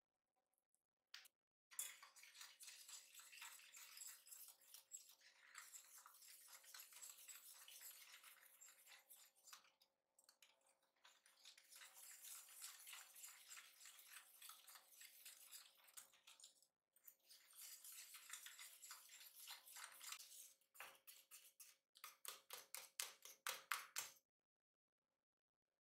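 Wire whisk beating cocoa, flour and starch into milk in a stainless steel pot: the metal wires rattle and scrape against the pot in quick strokes, with two brief pauses. Near the end the strokes become slower and evenly spaced, about five a second.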